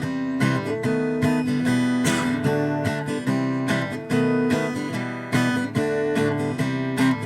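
Acoustic guitar strummed in a steady rhythm, a little under two strokes a second, playing an instrumental break between verses with no singing.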